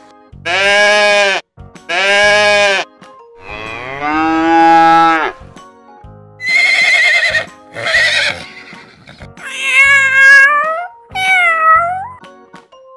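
A run of farm-animal calls over children's background music. First a goat bleats twice, then a cow gives one long moo, then a horse whinnies with a wavering call, and near the end a cat meows twice.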